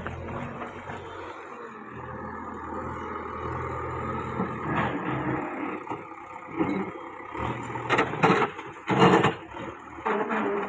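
JCB 3DX backhoe loader's diesel engine running steadily, then from about eight seconds in a series of loud, sharp clatters as the backhoe bucket works the pile of broken stone.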